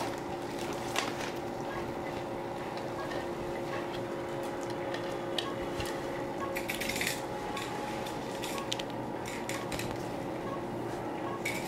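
Light clicks and clinks of small clinical equipment being handled, most of them bunched about two-thirds of the way in, over a steady electrical hum from the room's machines.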